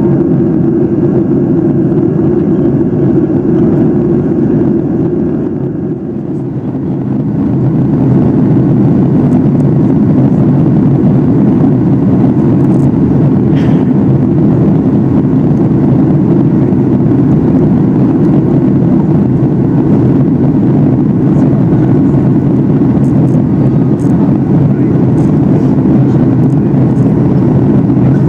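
Steady in-cabin drone of a Boeing 737-800 in flight: its two CFM56-7 engines and the airflow past the fuselage, heard from a window seat. The drone dips briefly about six seconds in, then runs on slightly louder.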